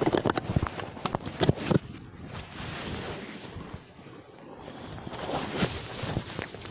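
Wind buffeting the microphone in a steady rush, with a run of sharp clicks and knocks in the first two seconds and a couple more near the end.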